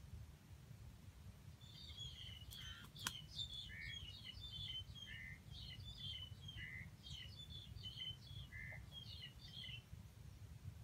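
A small bird singing a quick, varied string of high chirps and warbled notes for about eight seconds, faint, over a low steady rumble. A single sharp click comes about three seconds in.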